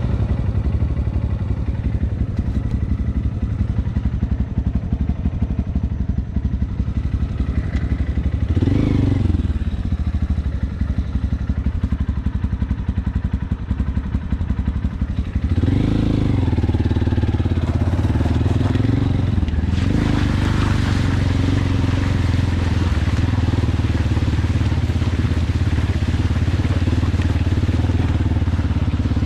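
Honda XR190L's single-cylinder four-stroke engine running as the bike is ridden, with the revs rising and falling about nine seconds in and again between about sixteen and nineteen seconds in. From about twenty seconds in, a steady rushing noise builds up over the engine.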